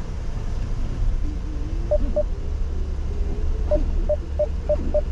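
Car parking sensor beeping: a pair of beeps about two seconds in, then steady beeps from nearly four seconds in at about four a second, warning that the car is close to an obstacle. Low engine and deck rumble heard inside the car's cabin.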